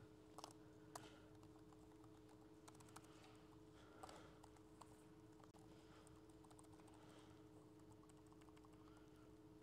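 Faint computer-keyboard typing: scattered single keystrokes as a short line of code is entered, over a steady low hum.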